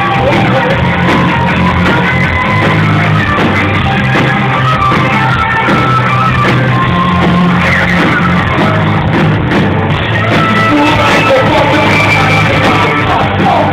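Live rock band playing loud, with guitars, bass and a singer, heard in a large hall over the crowd. The recording is distorted and dull, with no highs.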